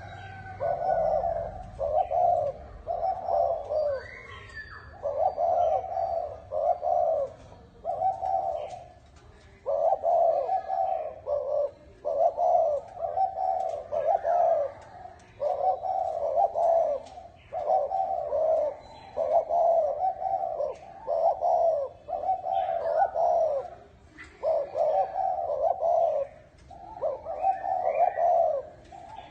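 Spotted dove cooing fast, one coo phrase after another with only brief breaks between them. This is the quick 'thổ còi' style of song.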